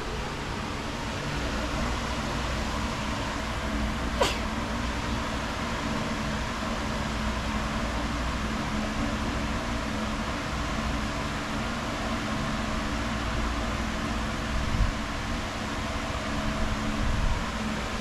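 Steady hum and hiss of a running ventilation fan, with a single sharp click about four seconds in.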